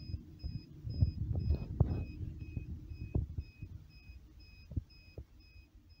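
Rustling, knocks and thumps of hands handling cable wires and a small plug-in terminal block connector close to the microphone, heaviest in the first two seconds and thinning out after. Under it a faint electronic beep repeats steadily about twice a second.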